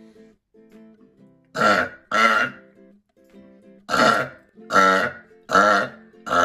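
A person letting out a quick series of six short, loud, deep burps: two close together, a pause, then four about a second apart, the last cut off at the end.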